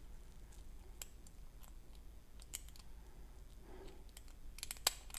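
Lock pick working the pins of a six-pin pin-tumbler challenge lock: faint scattered clicks and scrapes of metal on metal, with a quick cluster of sharper clicks near the end.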